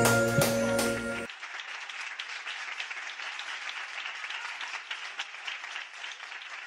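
The enka karaoke backing track ends abruptly about a second in, and an audience keeps applauding.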